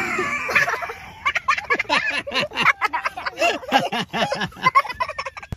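A person's voice making quick, repeated short sounds, several a second.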